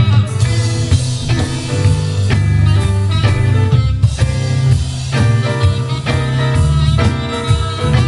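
Live band playing: drum kit, a prominent moving bass line and keyboards in a steady groove.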